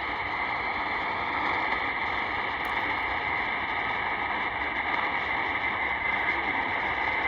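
Steady shortwave static from a portable receiver's speaker, tuned to a weak Voice of Mongolia signal on 12015 kHz, with the station's sign-on music faint beneath the hiss.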